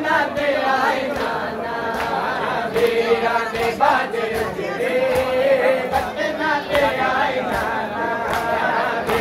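Group of men chanting a Punjabi noha (mourning lament) in unison, a lead voice answered by the crowd, with a steady rhythm of sharp slaps from hands beating on chests (matam) keeping time.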